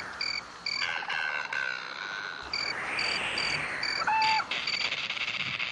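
Crickets chirping in an even pulse of about two chirps a second, over a hiss that swells and fades, with a short animal call about four seconds in.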